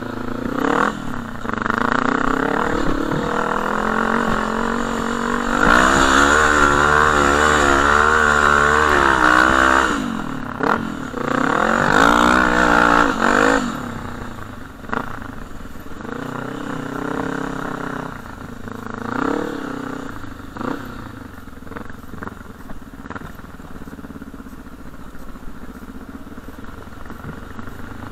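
Quad ATV engine running under throttle while being ridden over sand, its revs rising and falling. It is loudest in the first half of the stretch and lighter after that.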